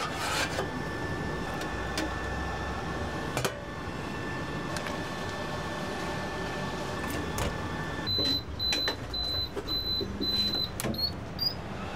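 A steel ladle clicks against a steel pot and tray a few times over a steady kitchen hum. About eight seconds in, a kitchen appliance gives a string of six or so short, high electronic beeps, then two short rising chirps.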